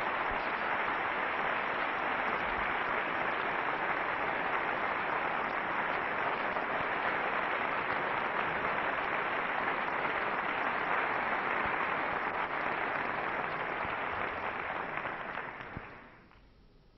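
Large concert-hall audience applauding, a steady dense clapping that dies away near the end.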